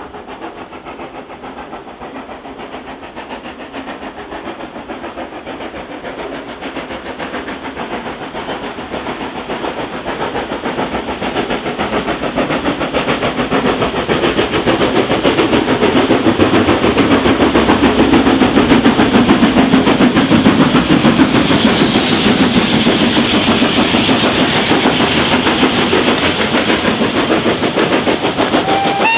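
Steam locomotive hauling a train, approaching and growing steadily louder for about fifteen seconds, then passing close with a dense, rapid pulsing of exhaust and rail noise. A steam whistle begins right at the end.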